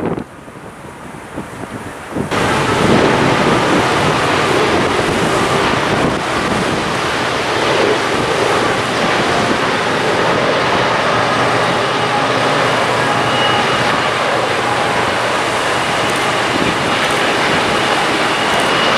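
Steady loud roar of wind on the microphone, starting suddenly about two seconds in, as a Norfolk Southern intermodal train's diesel locomotives approach and pass near the end.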